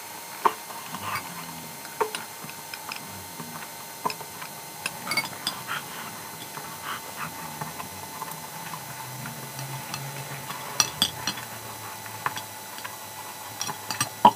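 Eating sounds: noodles being slurped and chewed, with irregular sharp clicks of plastic chopsticks against the plate.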